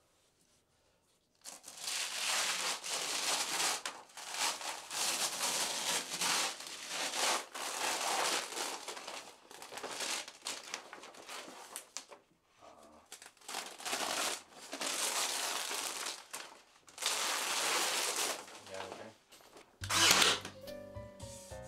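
Crinkling and rustling of a sheet of paper or plastic being handled, in irregular bursts of a second or two, with a short louder burst near the end.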